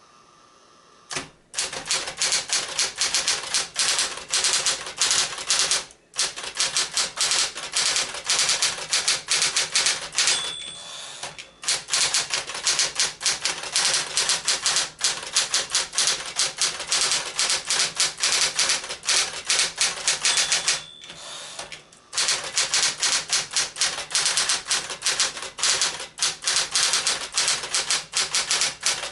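Sears Medalist Electric 12 typewriter (a Smith-Corona 5TE) typing fast, a dense run of keystroke clicks over the motor's steady hum. The clicks stop briefly three times, and a short bell tone rings just before two of these pauses, as at the end of a typed line.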